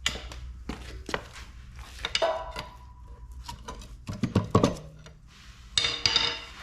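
Metal clanks and knocks from working a cast-iron cylinder head loose on a 396 big-block Chevrolet engine: ringing metallic strikes about two seconds in and near the end, with heavier thuds about four and a half seconds in.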